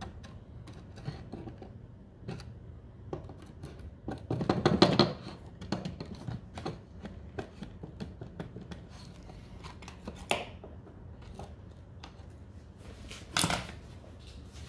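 Scattered small taps, clicks and scrapes of an old wooden toolbox panel being handled and probed with a screwdriver on a wooden workbench. There is a louder knock and rub about four to five seconds in, and another sharp knock near the end.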